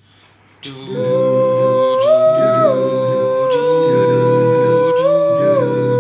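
Small a cappella vocal group humming wordlessly in close harmony, coming in about two-thirds of a second in. Over the lower held voices, the top line holds a long note that steps up and back down twice.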